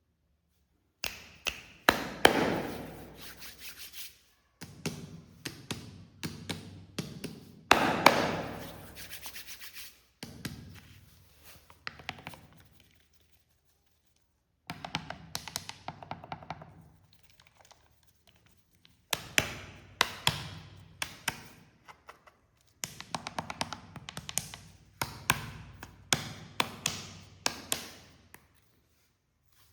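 Cola being poured in a series of short pours, each starting abruptly and fading into a fine crackling fizz, with short silences between pours.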